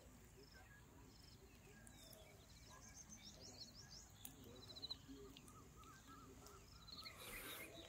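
Near silence with faint birds calling: a few quick, high chirping trills in the middle, then lower repeated notes. There is a faint rustle near the end.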